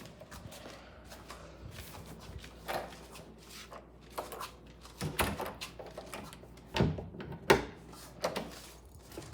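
A series of irregular knocks and thuds over a low steady hum, the two sharpest about seven and seven and a half seconds in.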